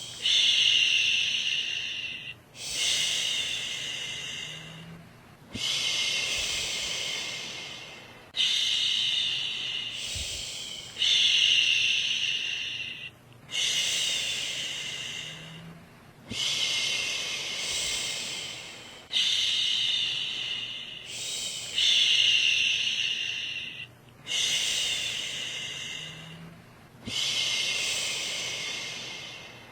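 A woman's voice shushing a baby to sleep: long "shhh" sounds repeated in an even rhythm, about one every two and a half to three seconds, each starting strong and trailing off.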